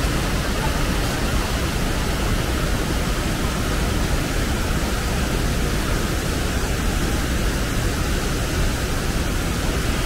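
Steady roar of a waterfall: an even rush of falling water.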